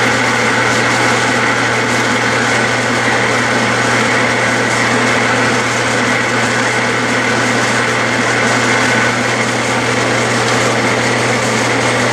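Clausing metal lathe running steadily under power while a carbide threading insert single-point cuts a thread, peeling off a curled chip. It makes a steady low hum with a constant higher whine.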